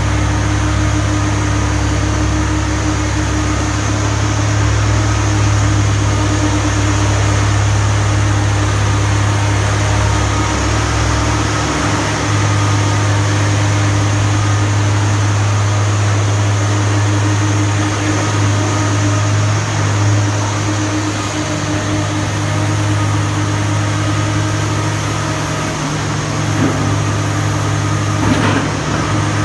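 Diesel engine of a Komatsu PC300LC excavator running steadily with a deep hum, its low note shifting about a third of the way through. A short knock comes near the end.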